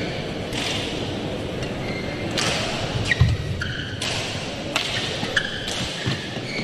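A badminton rally in an indoor hall: sharp racket strikes on the shuttlecock, roughly half a second to a second apart, with a few short squeaks from shoes on the court.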